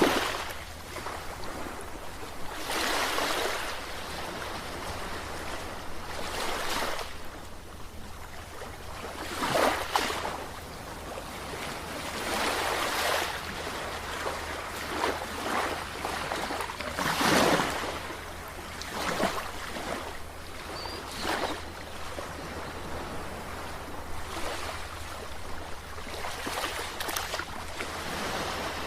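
Ocean waves breaking and washing in, a steady rush of surf that swells up every few seconds with larger surges.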